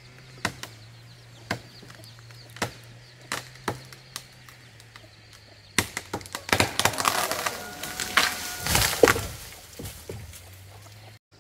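Sharp single knocks, about one a second, then about four seconds of loud crackling and rustling.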